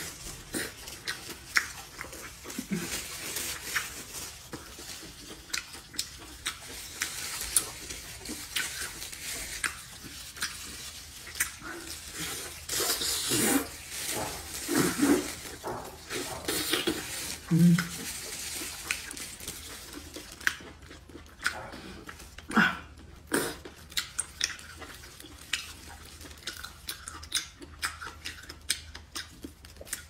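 Close-up eating sounds: wet chewing, smacking and slurping of cooked octopus tentacles, a steady run of irregular small clicks and smacks.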